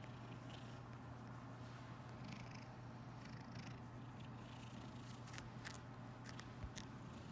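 Domestic cat purring steadily, held close, with soft rustles and a few faint clicks in the second half as it paws at a tennis ball on the bedding.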